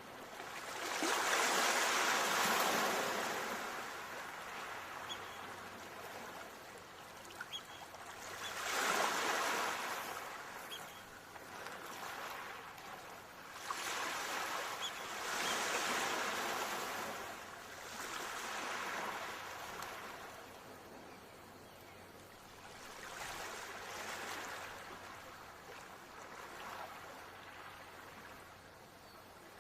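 Ocean surf: waves washing in and drawing back, swelling and fading every few seconds, the largest surges about two seconds in and again about nine seconds in.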